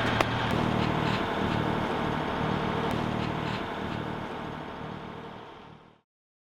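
Sailboat's engine running steadily under way, with a haze of wind and water noise, fading out about five seconds in.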